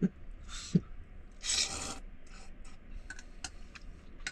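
A man eating noodles: one loud slurp about a second and a half in, then light clicks of chopsticks against a metal bowl.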